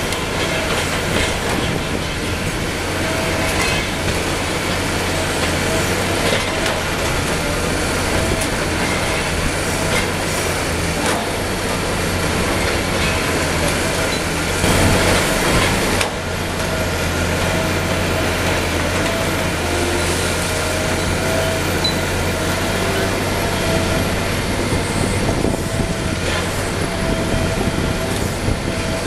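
Liebherr 954 long-front demolition excavator working: its diesel engine runs steadily under a constant whine, with repeated clanks and crashes of concrete rubble. A louder stretch of crashing comes about fifteen seconds in.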